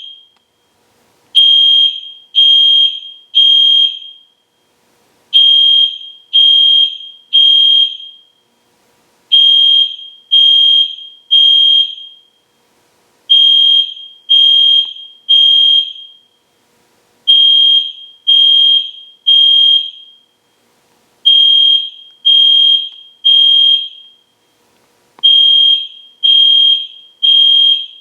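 EST Genesis fire alarm horn sounding a loud, high, steady tone in groups of three short blasts, each group followed by a pause of about a second and a half. This is the temporal-three evacuation pattern.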